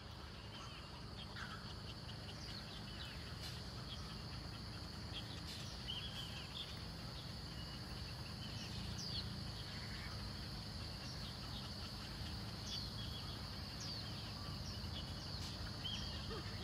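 Birds chirping and calling in many short notes, over a steady high-pitched drone and a constant low rumble.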